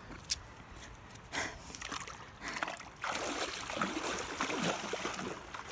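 Legs splashing through shallow river water as a person wades in, starting about three seconds in and going on steadily.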